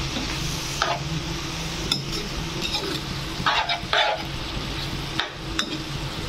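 A spoon stirring and scraping chickpea and potato curry around a pan, with a steady sizzle from the cooking masala underneath. The scrapes come every second or so, strongest around three and a half to four seconds in.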